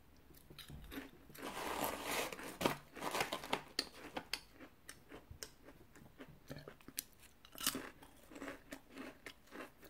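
A KaKa shrimp chip being bitten and chewed. A dense burst of crunching comes about a second in, followed by a run of short, sharp crackling chews.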